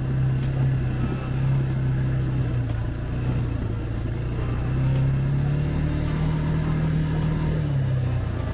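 ATV engine running steadily, its pitch rising a little about five seconds in and dropping back near the end.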